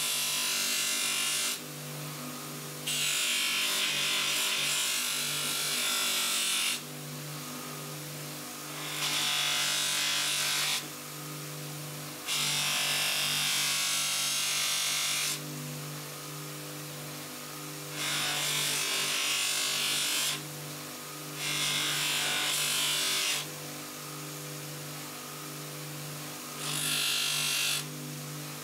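Bench polisher running steadily with a stitched cotton buffing wheel, and a brass pump fitting pressed against it again and again. Each contact brings a loud hissing rub lasting one to four seconds, about seven times, over the motor's steady hum.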